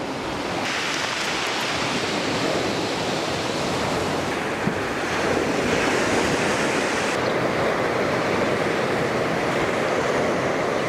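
Sea surf washing onto a pebble beach: a steady rush of wave noise.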